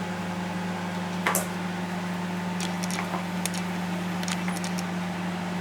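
Light taps and clicks of a utensil against a bowl of rice, one knock about a second in and a few faint clicks after, over a steady low hum.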